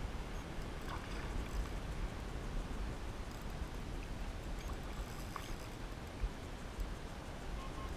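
Wind rumbling on an action-camera microphone with water lapping at a kayak, while a hooked fish is played from it. One short knock stands out about six seconds in.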